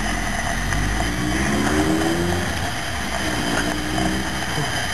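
Miniature 7¼-inch gauge steam locomotive venting steam with a steady hiss over a low rumble.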